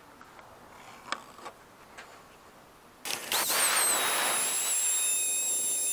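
A few light taps and scratches of a pencil and steel square marking out timber, then about three seconds in a Bosch POF 1400 ACE plunge router starts up: its whine rises quickly and settles into a steady high whine over the rush of the motor.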